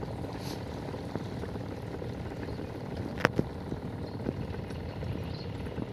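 Steady low outdoor background rumble, with one sharp click a little past three seconds in.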